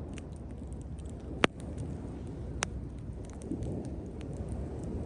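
Wood bonfire crackling: many small ticks and a few sharp pops, the loudest about a second and a half in, over a steady low rush.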